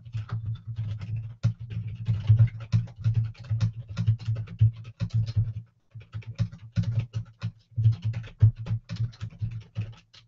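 Fast typing on a computer keyboard: a rapid run of keystroke clicks, with a short pause about six seconds in.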